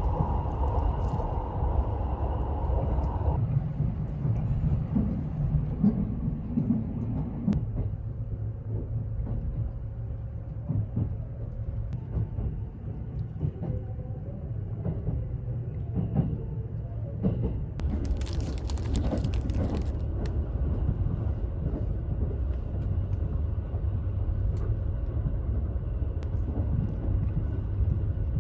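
Haruka limited express train running, heard from inside the passenger cabin: a steady low rumble of the wheels on the rails with occasional small clicks. A brief hiss comes about eighteen seconds in.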